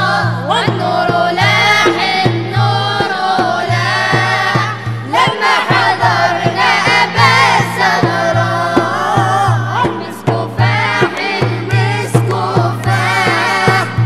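A group of male and female voices singing an Arabic Islamic devotional song (inshad) together, over a frame drum beating a steady rhythm of about three strokes a second.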